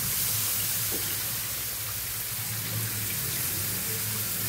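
Tamarind water poured into a hot pan of oil-fried shallots, garlic and spice powders, hissing and sizzling steadily.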